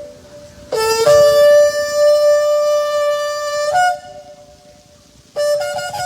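Shofar blown: one long steady blast of about three seconds that steps up in pitch at the start and flicks up at the end, then a second blast near the end that jumps to a higher note and wavers.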